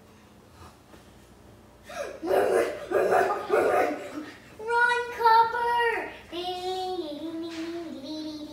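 A child's voice: a few rough, noisy cries starting about two seconds in, then long held notes that slide and step down in pitch, a child howling like a dog.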